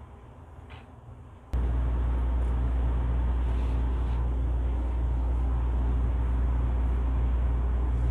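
A loud, steady low machinery hum with a constant pitch cuts in abruptly about a second and a half in, over fainter low noise before it.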